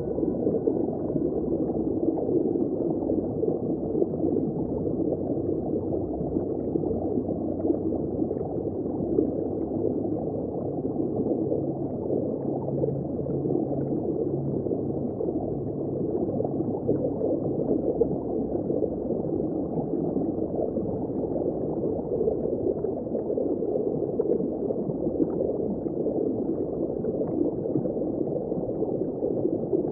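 Underwater ambience: a steady, muffled rushing of moving water, with all of its sound in the low and middle range and nothing bright on top.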